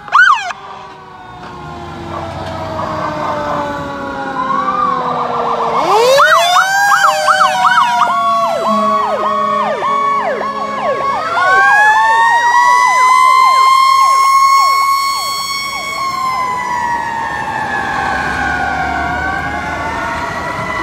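Several emergency-vehicle sirens from passing fire trucks and a police car, overlapping as they wail and yelp with their pitch sliding up and down. A fast yelp runs from about six to ten seconds in, and a loud wail rises and holds in the middle of the clip before easing off.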